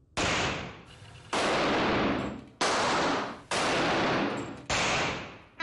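Five gunshots from a Colt M1911 .45-calibre semi-automatic pistol, about a second apart; each starts suddenly and rings on for most of a second before fading.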